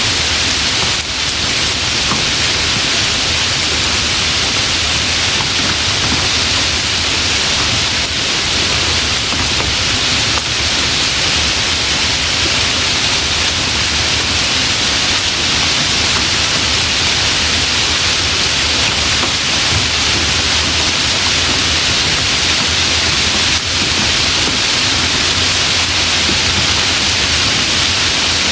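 Light rain falling as a steady, even hiss, with no single drops standing out.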